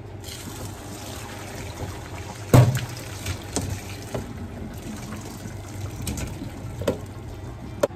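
Water from a pot of boiled potatoes pouring into a metal colander in a stainless steel sink, with the diced potatoes tumbling into the colander. There is a loud knock about two and a half seconds in, and lighter knocks after it.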